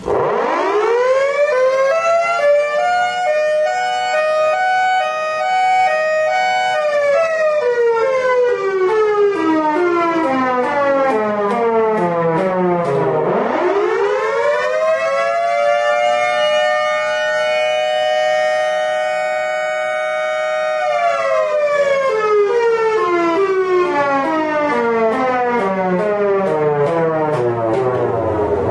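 Miniature 3D-printed Thunderbolt 1003 civil-defense siren sounding two full wail cycles. Each time it winds up to a steady loud wail within about two seconds, holds it for several seconds, then winds slowly down. It starts winding up again about halfway through and once more right at the end.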